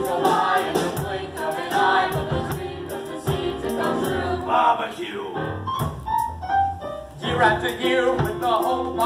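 Live musical theatre number: several voices singing together with piano accompaniment. The voices thin out to a few held notes a little past the middle, then the fuller singing comes back.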